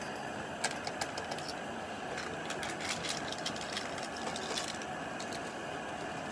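Gas burner of a Planet X Jobsworth X2 canister stove running with a steady hiss, heating its pot of water. A run of light clicks and taps sits over it from about half a second in to about two-thirds through.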